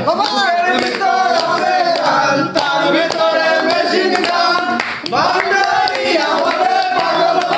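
A group of young men singing a song together in unison, clapping their hands to keep the beat, with no instruments.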